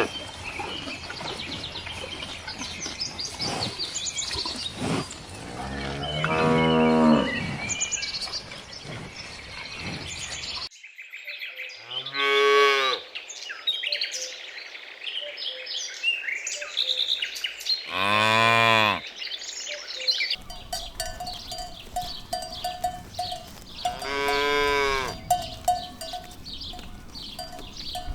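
Cattle mooing: four separate long moos, each about a second long and rising then falling in pitch, spaced several seconds apart.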